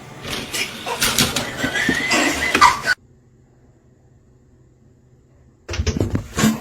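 A pet animal's short wavering cry over rustling and handling noise. It cuts off about three seconds in, and a few knocks follow near the end.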